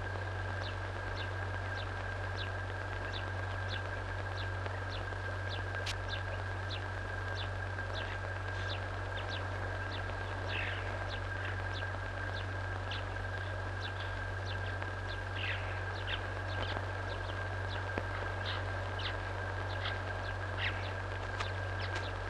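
Small bird chirping, short high chirps about two a second, over a steady low hum and a thin steady whine on the soundtrack.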